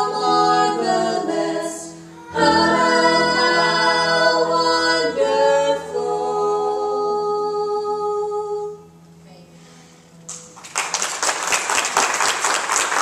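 Group of voices singing the closing line of a hymn with acoustic guitar, ending on a long held note that fades out about nine seconds in. After a brief lull, applause breaks out and carries on.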